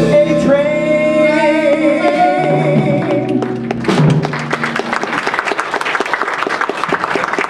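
A jazz band's final held chord, with a male singer holding the last note with vibrato over guitar, bass and drums; it stops about four seconds in and gives way to audience applause.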